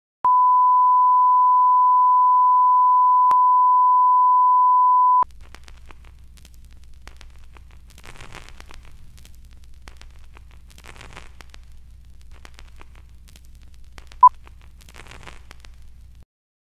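A steady, loud line-up test tone held for about five seconds and cut off abruptly, followed by the low hum and faint crackle of an old-film-style soundtrack with three short bursts of hiss. A single short sync beep sounds about two seconds before the sound cuts off.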